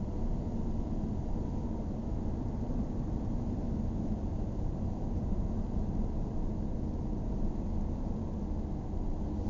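Steady road and engine noise heard inside a moving car's cabin: an even low rumble of tyres and engine at cruising speed.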